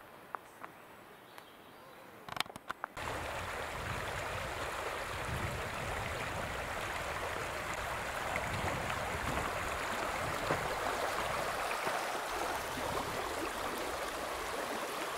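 Shallow river water running over gravel and stones, a steady rushing that starts abruptly about three seconds in. Before that, a few faint clicks on a quiet trail.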